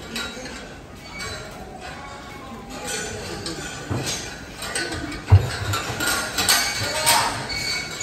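Busy cattle shed: scattered metal clinks and knocks from the tethered bulls and their stalls, with one sharp, heavy thump about five seconds in.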